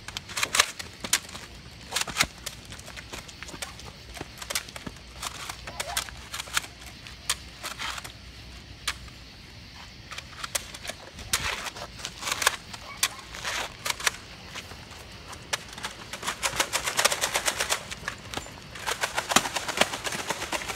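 Nerf foam-dart blasters firing: scattered sharp pops and clicks, thickening into fast strings of shots over the last few seconds.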